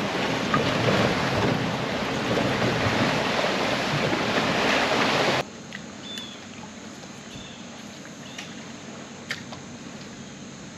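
Loud wind noise on the microphone over choppy, splashing water, the boat rocking in a big boat wake. It cuts off abruptly about five seconds in, leaving a quieter background with a few faint clicks and short chirps.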